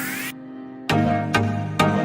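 Electronic background music. A rising sweep cuts off just after the start and the track drops away briefly. Then a steady beat comes back in a little under a second in, with a hit about every half second.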